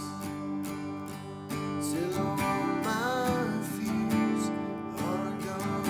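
Acoustic guitar strummed steadily, with a voice singing a worship song.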